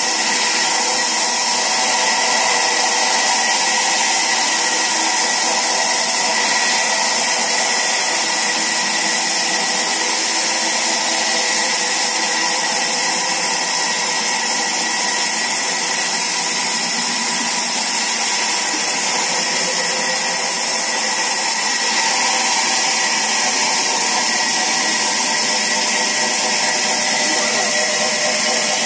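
Sawmill saw running steadily: a loud, even machine whine over a hiss, with no change in pitch or level.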